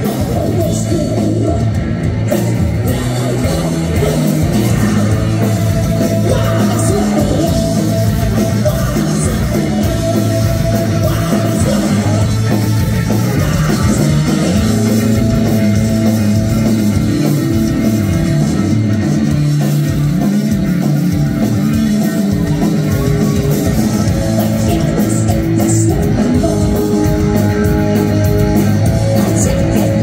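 Hardcore punk band playing live through a club PA: distorted electric guitars, bass and drum kit at a loud, steady level, with a singer's vocals over them.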